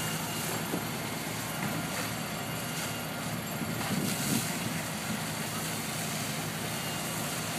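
Fire truck engine running steadily with a low hum under a constant rush of noise, powering the pump that feeds the hose lines.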